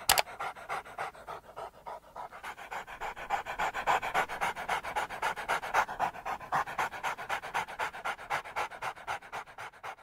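A dog panting quickly and evenly, several breaths a second, with a single sharp click right at the start.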